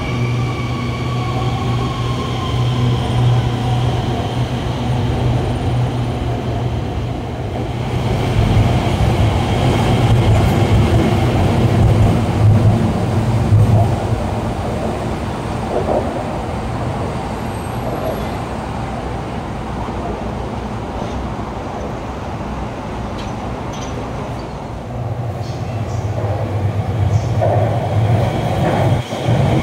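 Guangzhou Metro Line 21 electric trains running through the station: a steady low hum with an electric whine dropping in pitch near the start, then a louder rumble as a train runs past on the viaduct.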